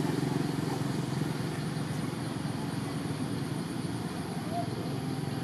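A steady low motor drone, with a couple of faint chirps about four and a half seconds in.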